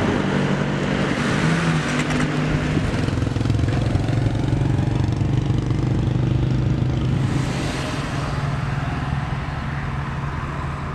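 A motor vehicle's engine running steadily.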